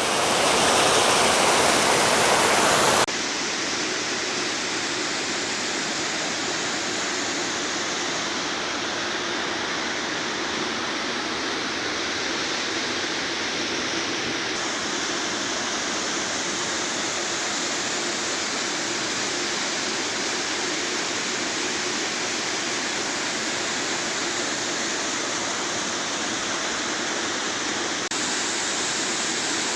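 Small waterfall's water rushing steadily. It is louder for the first three seconds, then drops abruptly to a slightly quieter, even rush.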